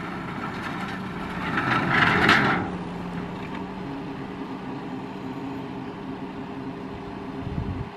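SUV engine running steadily under a tow load. About one and a half to two and a half seconds in comes a loud metallic scraping clatter as a corrugated galvanized steel culvert pipe is dragged off a trailer onto the ground.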